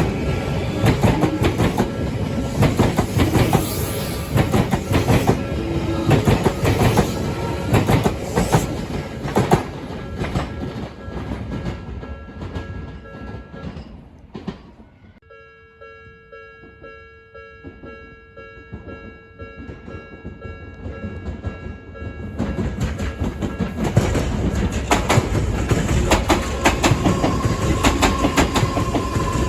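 Trains passing over a level crossing, wheels clattering over the rail joints. About halfway through the clatter fades out, leaving a steady high tone for several seconds, and then another train's clatter builds up again.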